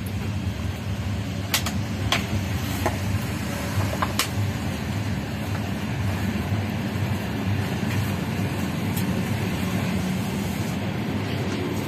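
Passenger train running along the track, a steady low rumble with a few sharp clicks in the first four seconds.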